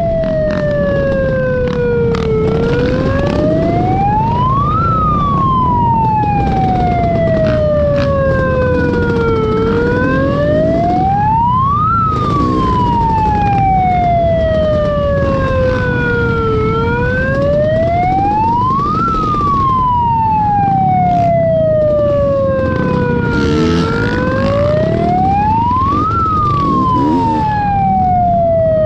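A siren wailing in a slow cycle, sliding down and sweeping quickly back up about every seven seconds. Under it runs the steady rumble of ATV engines and wind while riding, with a few knocks.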